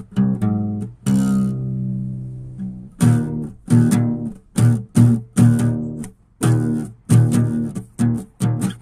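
Background music on guitar: short, sharply struck chords with bass underneath. About a second in, one chord rings for nearly two seconds, then short chords follow in a steady rhythm, about two a second.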